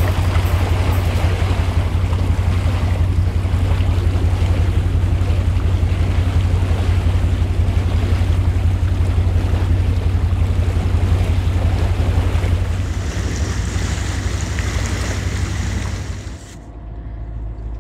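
A motor boat's engine drones steadily under the rush and churn of its propeller wash. About sixteen seconds in, the sound drops to a quieter, duller hum.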